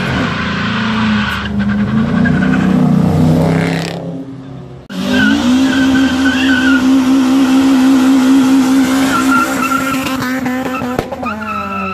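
Car engine held at high revs during a burnout, with tyres squealing on the pavement. The sound drops away briefly about four seconds in, comes back abruptly at a steady high pitch, and near the end the revs fall and climb again.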